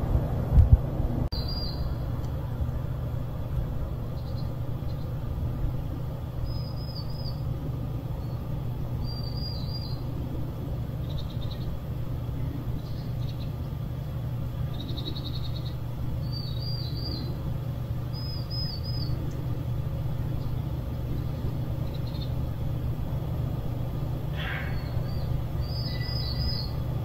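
Small birds chirping: short, high two- and three-note phrases repeated every couple of seconds, over a steady low rumble.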